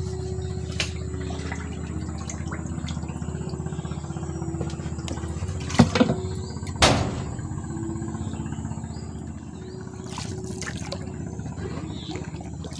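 A small engine running steadily with a low, pulsing hum, with a couple of sharp knocks about six and seven seconds in.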